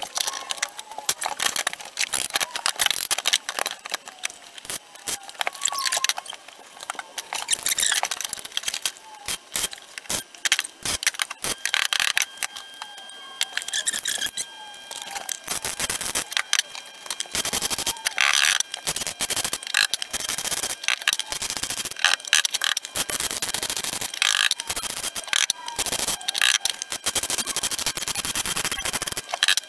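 MIG welder crackling and spitting in short, irregular runs as a steel repair patch is welded into a car's rusty floor pan.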